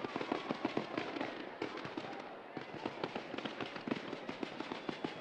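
Fireworks display: a dense, irregular run of sharp bangs and crackles, many per second, easing slightly near the end.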